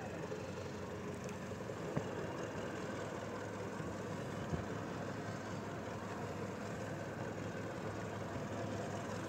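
Boat engine running steadily, heard from on board as an even low drone.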